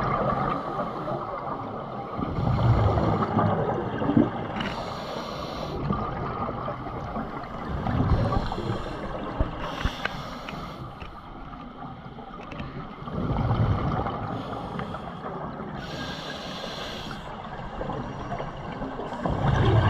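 A scuba diver breathing through a regulator underwater: a hissing inhale alternates with a louder rumbling gush of exhaled bubbles, in a slow cycle of about five to six seconds.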